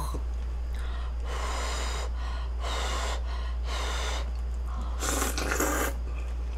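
Close-up eating sounds: three short breathy rushes of air about a second apart as a mouthful of glass noodles and bulgogi is brought to the mouth, then a louder, longer slurp of broth from a small bowl about five seconds in.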